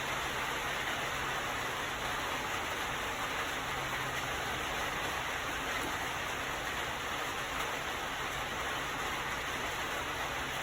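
Steady, even hiss with a faint low hum underneath, unchanging throughout; no distinct events.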